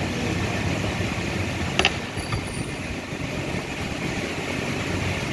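Steady low mechanical hum, with one sharp click about two seconds in.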